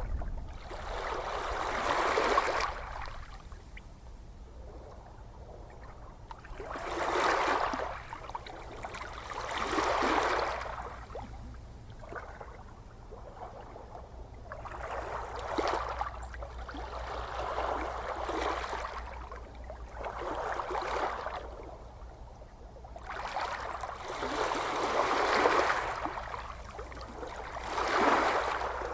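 Gentle ocean waves washing in, each one a soft rush of surf that swells and fades, about every three seconds.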